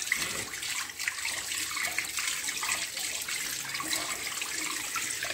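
Kitchen tap running steadily onto herring in a metal bowl in a stainless steel sink, the water splashing as the fish are rubbed clean by hand.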